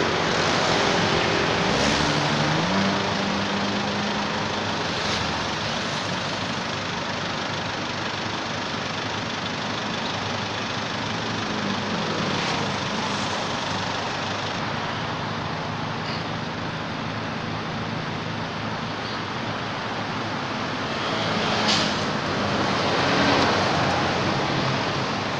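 Steady road traffic noise, with passing vehicle engines whose pitch rises about two seconds in and falls again around the middle.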